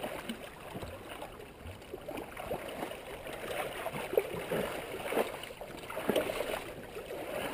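River water churning and splashing around a stuck sport quad as its wheels spin in the water and throw up spray.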